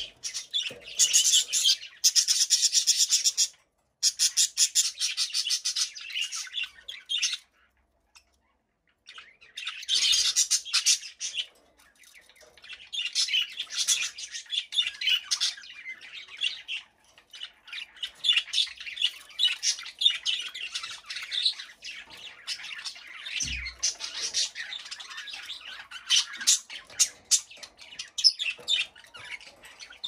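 Budgerigars chirping and warbling in fast, continuous chatter, with a break of about two seconds roughly eight seconds in.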